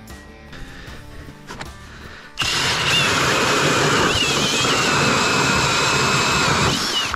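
Cordless drill driving an ice auger, starting about two and a half seconds in: a steady, loud motor whine over the grinding of the bit cutting down through snow and ice. The pitch of the whine dips briefly under load a couple of times, and it stops just before the end.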